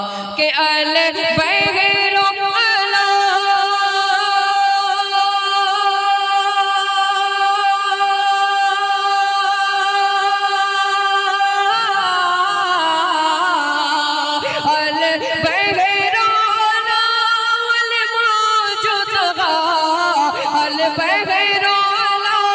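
A male naat reciter singing a long, drawn-out melismatic line, holding notes with a wavering vibrato. The pitch steps down about twelve seconds in and slides lower again near the end.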